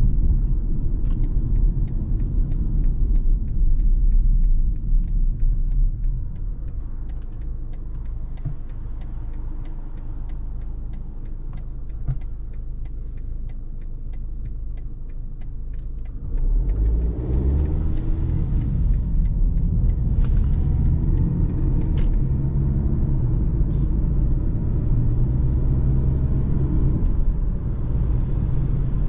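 BMW car heard from inside the cabin: low engine and road rumble at low speed with a regular ticking like a turn signal, then a little over halfway through the engine note rises as the car accelerates away and settles into a louder steady drive.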